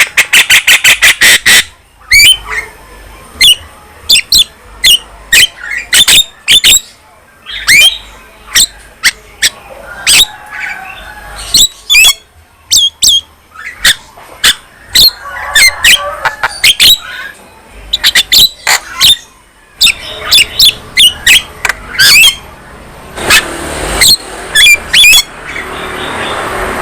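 Javan myna (jalak kebo) chattering song: a fast run of sharp clicks at the start, then clusters of loud clicking and whistled notes, with harsh squawks near the end.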